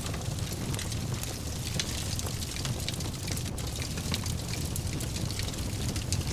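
Wood fire in a fireplace crackling, with frequent small, sharp pops over a steady low rumble of the burning fire.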